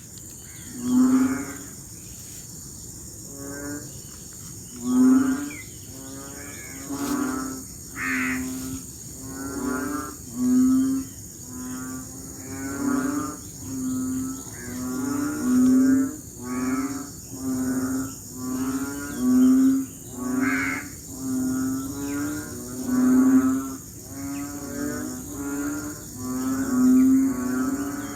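A chorus of frogs giving deep, lowing calls during rainy-season breeding, about one call a second, with several frogs overlapping. A steady high-pitched hiss runs underneath.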